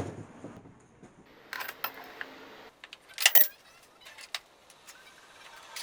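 Metal spanners clinking and knocking as they are handled and fixed in place: a scatter of short clinks and knocks, the loudest a brief clatter about three seconds in.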